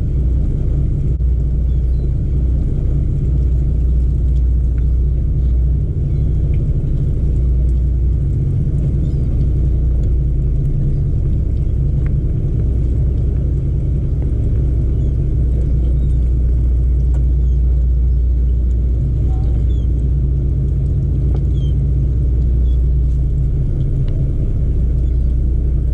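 Steady low drone of a sport-fishing boat's engines running under way.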